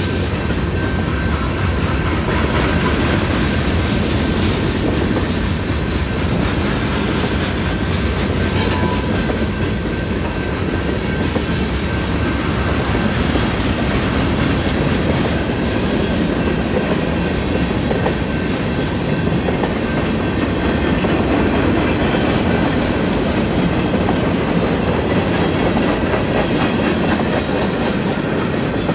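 Freight cars rolling steadily through a railroad grade crossing, wheels running over the rails, with the crossing's electronic bells ringing.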